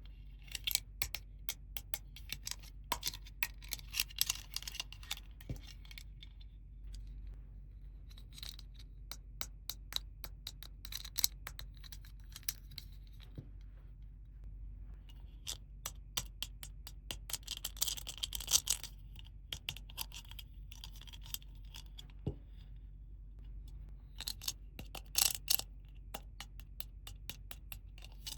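Small plastic toy pieces and their packaging being handled: bursts of crisp clicking, tapping and crinkling that come in clusters, with short pauses between them.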